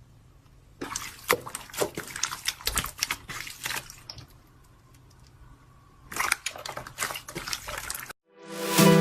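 Slime being squeezed and pressed, making wet squishing with crowded crackling and popping clicks, in two stretches. Music begins near the end.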